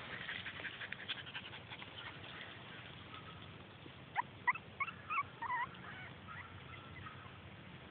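Young puppies giving a quick run of about eight short, high yips and squeaks lasting under two seconds, starting about four seconds in.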